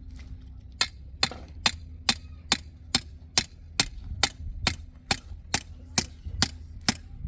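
A hammer striking steadily, about fifteen sharp blows a little over two a second, over a low steady hum.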